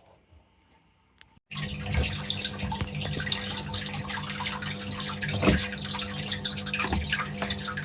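Water trickling and dripping over a steady low hum, starting abruptly about a second and a half in.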